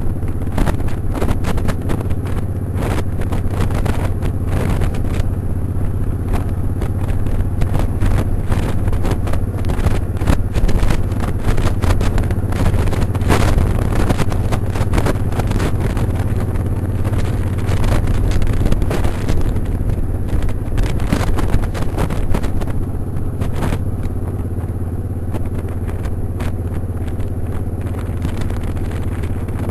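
Motorcycle engine running steadily on the road, with constant wind buffeting and flapping on the microphone.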